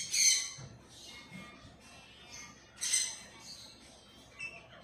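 Blue-and-gold macaw biting and crunching into a piece of green bell pepper: two sharp, crisp crunches, one at the start and one about three seconds in, with a smaller one near the end.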